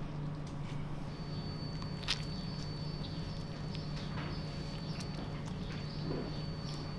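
Gloved hands pressing and stacking raw marinated chicken onto a shawarma spit: soft wet squishes and scattered clicks, with one sharper click about two seconds in. Under it runs a steady low hum, and a thin high whine comes in about a second in.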